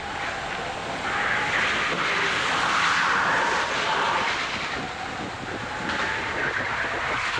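Go-kart engine running hard, heard from onboard the kart with a rush of wind and tyre noise; its note drifts up and down and the sound swells and eases as the kart accelerates and slows through the corners.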